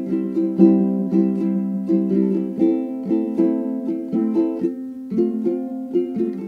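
Background music: a plucked string instrument playing a tune of quick, evenly spaced notes, about three a second.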